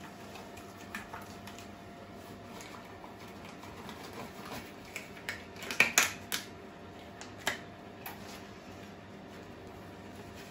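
Rubber household gloves being pulled onto the hands: scattered short snaps and rustles, loudest in a quick cluster a little past halfway through.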